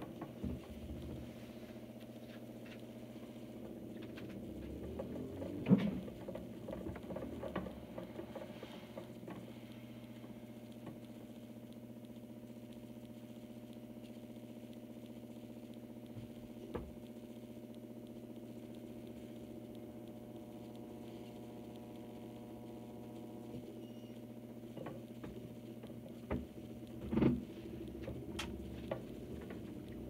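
Samsung front-loading washing machine turning its drum: a steady motor hum with soft patter and thumps as the laundry tumbles and drops. The loudest thumps come about six seconds in and again near the end, with a calmer stretch in the middle while the clothes lie still.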